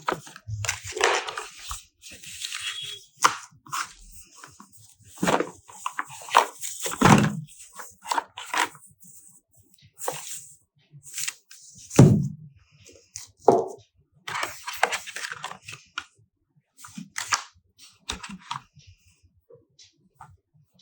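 Phone packaging being handled during an unboxing: irregular crinkling and tearing of plastic and cardboard, with scattered clicks and a few sharper knocks.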